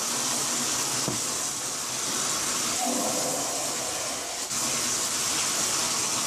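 Bath water running steadily into a tub as a dog is washed and rinsed, an even hiss.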